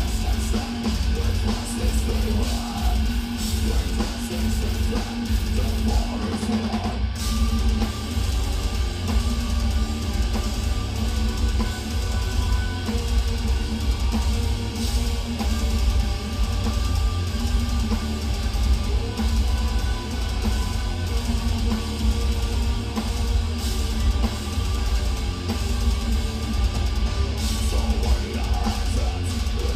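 Live heavy metal band playing: loud distorted, down-tuned electric guitars over heavy drums, dense and unbroken.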